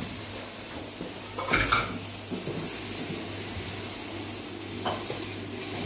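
Mutton and freshly added tomato paste sizzling in hot oil in a metal pot while a wooden spoon stirs them, with a louder knock of the spoon against the pot about a second and a half in.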